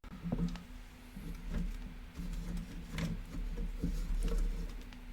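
Scattered light clicks and knocks of hand tools or meter leads being handled on the toaster, over a low steady hum.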